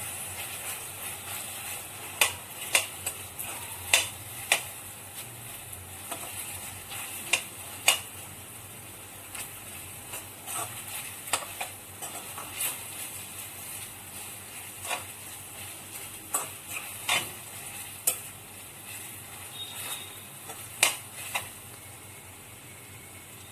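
Chicken Manchurian sizzling in a pan as it is stirred, a steady frying hiss with a spoon knocking and scraping against the pan at irregular moments.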